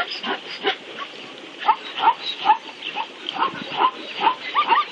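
A herd of plains zebras calling: short, yelping, dog-like barks, several animals overlapping, about two calls a second, with a brief lull near the start.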